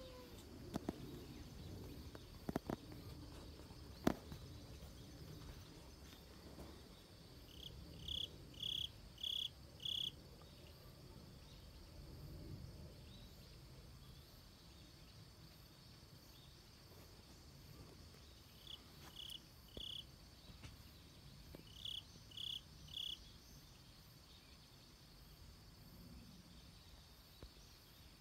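Quiet outdoor ambience with a faint steady high hum. Three runs of short, high, evenly spaced chirps, nearly two a second, stand out: four notes about a third of the way in, then two runs of three in the latter half. A few sharp clicks come in the first few seconds.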